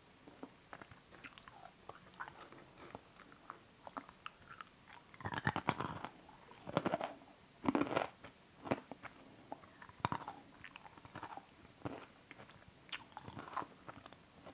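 A person chewing food close to the microphone: wet mouth clicks and crackly crunches, with louder runs of crunching bites about five to eight seconds in.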